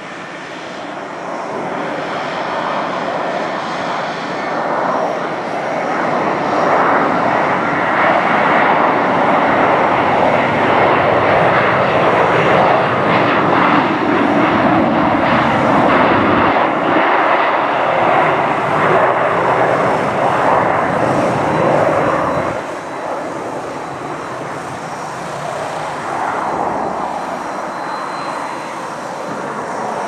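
Boeing 737-200's twin Pratt & Whitney JT8D turbofans at takeoff thrust. The jet noise builds over the first several seconds and stays loud through the takeoff roll. About three quarters of the way through it drops suddenly, then carries on at a lower level as the jet climbs away.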